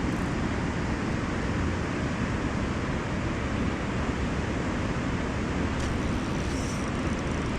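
Steady rushing of river current, an even noise without distinct events.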